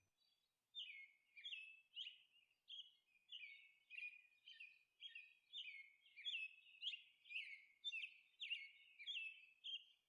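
Faint bird chirping: short notes about twice a second, each dropping quickly in pitch.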